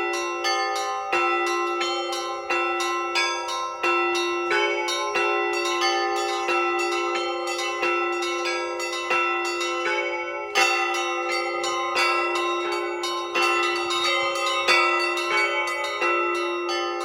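Russian church bells rung by hand in a continuous peal: a low bell struck evenly about every second and a half under a quick, dense pattern of smaller, higher bells, all ringing on into each other.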